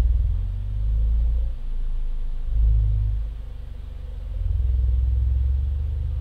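Deep low rumble that swells and fades in a few slow waves.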